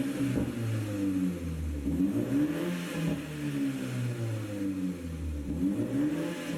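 BMW 330i's turbocharged four-cylinder engine revved up and down about four times through the stock exhaust. The engine runs a pop-and-crackle tune, and a few pops come as the revs fall.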